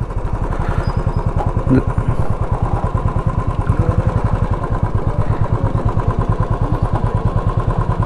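Royal Enfield Bullet 350's single-cylinder engine running at low revs with a steady, even, rapid beat.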